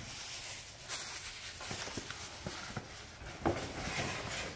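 Scattered light knocks and scrapes of packaging being handled: the impulse sealer's cardboard box and its foam inserts. A sharper knock comes about three and a half seconds in.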